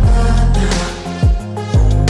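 Music with a steady beat of deep bass kick-drum hits, about two a second, under sustained instrumental notes.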